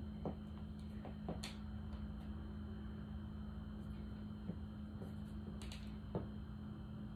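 Quiet room tone with a steady low hum, broken by a few faint taps and a couple of brief hissy rustles.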